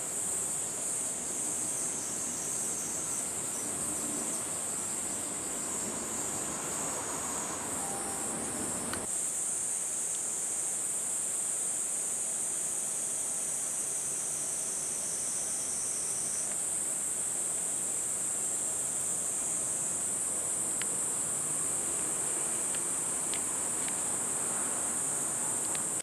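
Steady, high-pitched insect chorus shrilling without pause, over a low background hiss.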